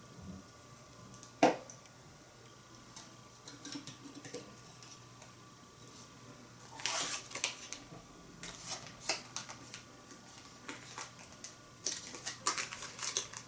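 Cooking utensils handled against a small iron pot: scattered clicks and light clatter, with one sharp knock about a second and a half in and busier clinking and scraping from about seven seconds on.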